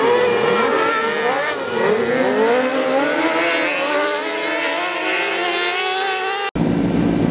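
Several race-car engines revving up and down through gear changes, their pitches crossing as the cars run together around an off-road course. Near the end the sound cuts abruptly to a lower, steadier engine noise.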